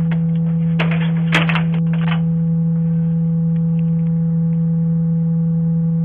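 A loud, steady, low electronic hum held at one pitch, with a few crackling clicks between about one and two seconds in.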